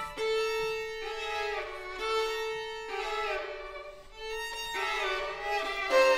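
Two violins playing a duet of held, overlapping bowed notes that change pitch about once a second; the playing softens briefly about two-thirds of the way through, then swells again.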